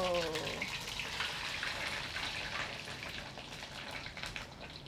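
Coconut-crumbed prawns deep-frying in hot vegetable oil in a wok: a steady crackling sizzle with many small pops, slowly fading.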